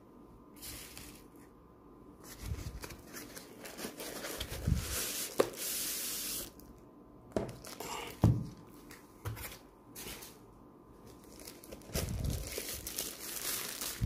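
Plastic packaging sleeve around a new laptop rustling and crinkling as it is handled, with a couple of sharp knocks of packaging against the table.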